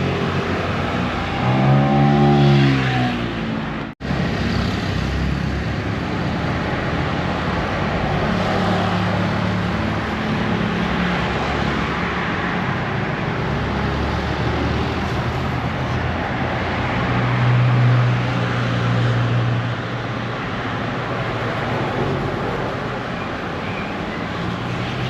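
Road traffic on a busy main road: a steady stream of passing vehicles with low engine hum. About two seconds in, one engine rises and falls in pitch as it goes by. There is a brief break in the sound at about four seconds.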